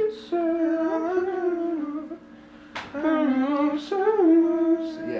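A voice humming or singing a wordless melody in two held phrases, the pitch sliding and wavering, the second phrase starting about three seconds in.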